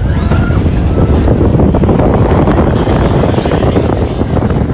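Mine-train roller coaster running along its track: a loud, steady rumble with wind buffeting the microphone.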